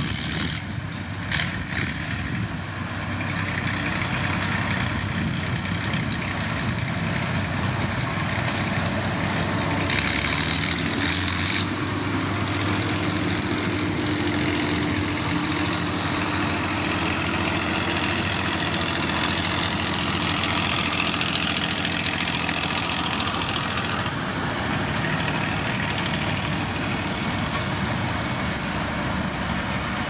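Diesel engines of heavy road-building machines, a motor grader and road rollers, running steadily.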